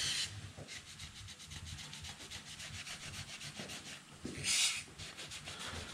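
Shop rag wiping the cast-iron main bearing saddles of a 454 big-block Chevy engine block in quick, even rubbing strokes, cleaning them so the new main bearings seat properly. A short hiss of aerosol brake cleaner spray is heard at the start and again about four and a half seconds in.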